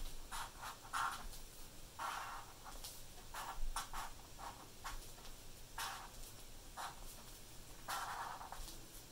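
Sharpie marker tip dragging across paper in short, irregular strokes while outlining a drawing.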